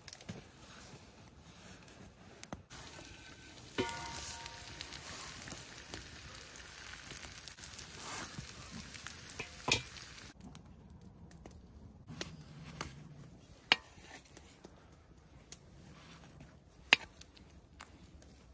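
Beef sizzling as it fries in a pan over a wood fire. The sizzle swells about four seconds in and fades out after about ten seconds, with a few sharp clicks scattered throughout.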